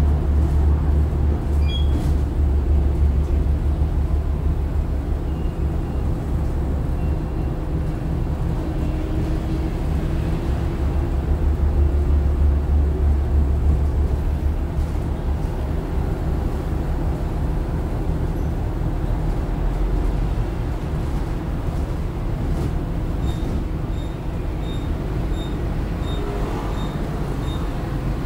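Foxconn (Hon Hai) electric low-floor bus running on the road: a heavy low rumble with a steady hum and a faint electric drive-motor whine that rises and falls with speed. In the last few seconds a short high beep repeats regularly, about three every two seconds.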